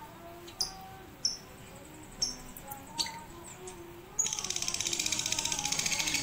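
Lovebird giving a few short, separate high chirps, then about four seconds in breaking into a continuous fast, rattling chatter (the long 'ngekek' song trained for in lovebird song contests).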